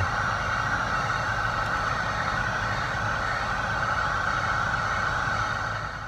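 Electric heat gun running steadily, its fan blowing with a low hum and a whining hiss, as it shrinks adhesive-lined heat-shrink butt connectors on wiring.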